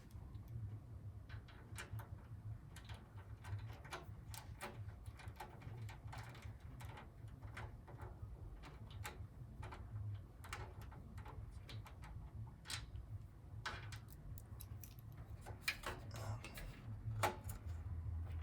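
Irregular light clicks and taps of a screwdriver and small screws against the metal case of a Power Mac G4 Quicksilver, as screws are fitted to hold the power supply in place, with a few sharper clicks near the end over a low steady hum.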